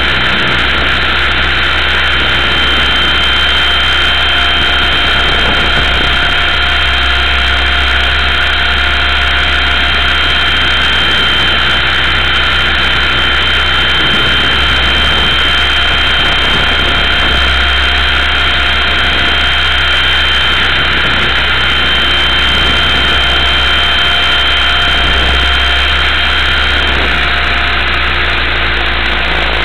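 Multiplex Funcopter electric RC helicopter in flight, heard through its onboard camera: a steady high whine from the motor and rotor over a constant low drone. The highest whine drops out near the end.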